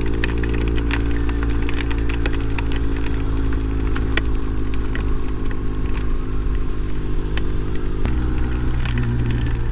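Motorcycle engine running steadily under way, with the engine note changing about eight seconds in. Many sharp ticks of rain hit over it.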